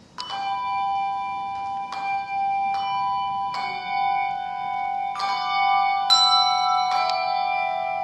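A handbell choir ringing the opening of a slow piece: chords struck about once a second or so, the first coming in right at the start, each one ringing on and overlapping the next.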